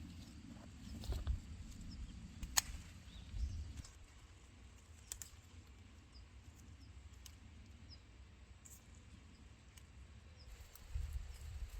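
Quiet outdoor ambience with faint, short high bird chirps now and then, a few sharp clicks, and soft low thumps and rumble in the first few seconds and again near the end.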